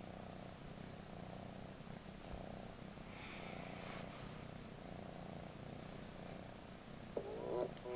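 A kitten purring steadily, a low continuous rumble that swells and eases about once a second with its breathing. Near the end, music starts playing from a tablet's small speaker.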